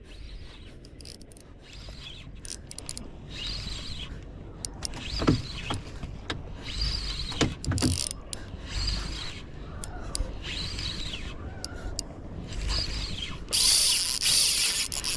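Fishing reel working against a hooked fish, its gears ratcheting in repeated spells of about a second, with a louder stretch near the end.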